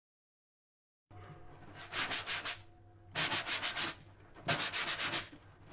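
Three short bursts of rapid scraping strokes, several strokes a second, after about a second of silence.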